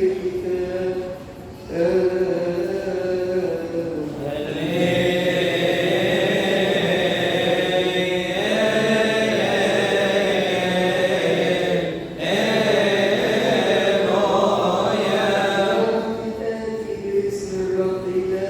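A man's voice chanting the Gospel in liturgical style, in long drawn-out phrases of slowly bending held notes with short breaks between them.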